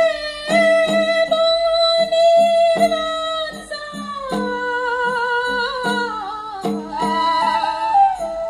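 Karbi folk song: a singer holds long, wavering notes that step down in pitch and climb back near the end, over a barrel drum beating about twice a second.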